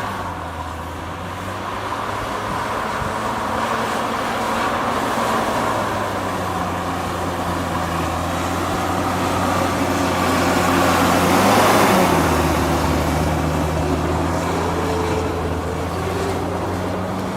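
Heavy diesel engine of earthmoving machinery running under load, its pitch shifting as the load changes. It grows loudest about eleven to twelve seconds in, then the engine pitch drops.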